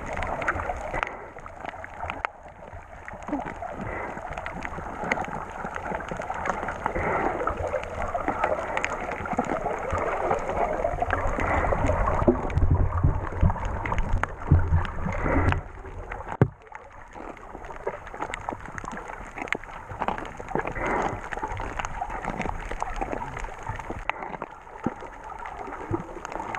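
Muffled sloshing and gurgling of seawater heard through a camera held just under the surface while snorkelling. Heavier low rumbles of moving water come about halfway through, and one sharp knock follows shortly after.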